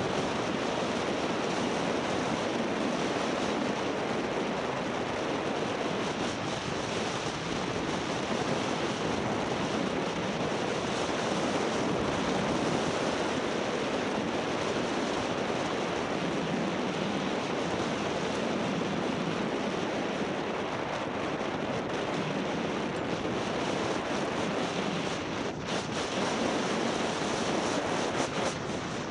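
Steady rushing hiss of skis sliding over groomed snow on a downhill run, mixed with wind across the camera microphone.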